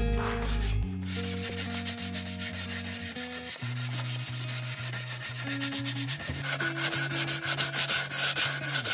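Hand sanding of a curved wooden arch with a handheld sanding pad: rapid, even back-and-forth strokes of abrasive rubbing along the wood grain, starting about a second in.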